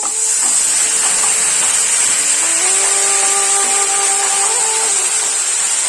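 Food sizzling in hot mustard oil in a pan: a loud, steady hiss that starts abruptly.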